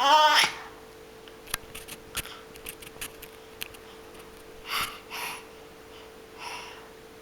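A baby gives one short, high squeal that rises in pitch right at the start, then a few small clicks and two soft breathy sounds follow. A faint steady hum runs underneath.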